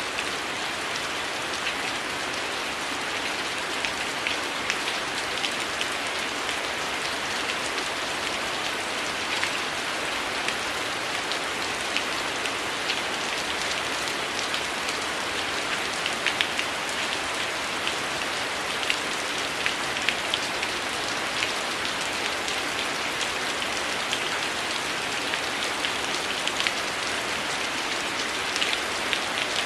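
Heavy rain falling steadily, with irregular sharp crackles and pops of a wood fire scattered over it.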